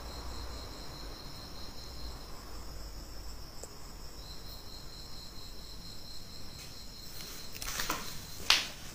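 Crickets chirping in a steady, high, unbroken trill, with a few short scuffing noises near the end.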